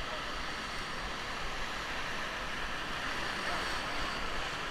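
Steady rush of whitewater in a river rapid.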